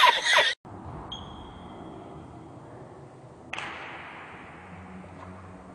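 A man's hearty laughter cuts off half a second in, leaving faint background hiss. A single thin high-pitched ping fades out over about a second, and the background noise steps up suddenly about three and a half seconds in.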